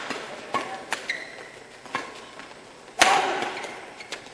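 Badminton rally: rackets hitting the shuttlecock several times, the loudest hit about three seconds in, echoing in a large hall. A short squeak just after one second.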